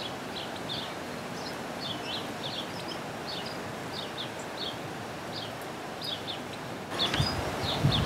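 Small garden songbirds chirping: short high notes, several a second, over a steady background hiss. About seven seconds in the background grows louder, with low rumbling under the chirps.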